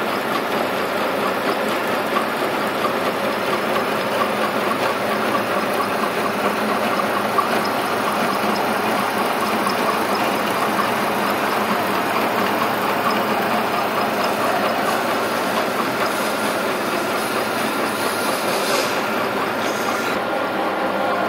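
Vertical milling machine with an end mill cutting a V bevel along a metal blade edge: a steady, dense cutting noise at an even level.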